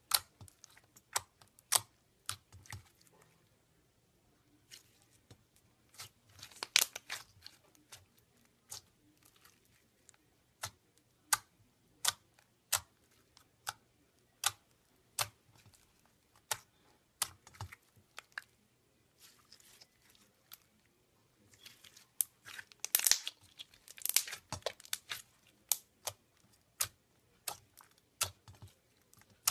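Glittery clear teal slime being poked and pressed with the fingertips, giving sharp sticky clicks and small pops, about one every half second to second. Quicker runs of crackling come about seven seconds in and again near the end.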